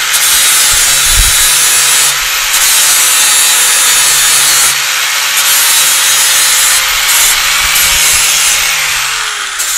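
Power grinder grinding back the end of a metal round rod on a fender skirt mounting bracket: a high steady whine over a harsh grinding noise. The grinding eases off briefly a few times, and the motor winds down with a falling whine near the end.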